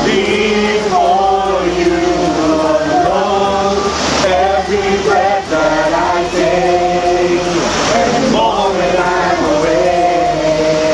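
A group of people singing a worship song together, in long held notes that step and glide from one pitch to the next.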